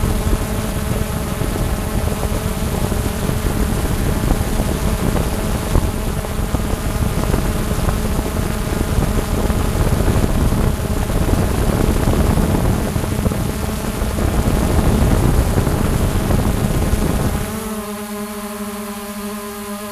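Xiaomi Mi Drone quadcopter's motors and propellers buzzing steadily in flight, a whine of several pitches over a rough low rumble. The rumble drops away near the end, leaving the whine plainer.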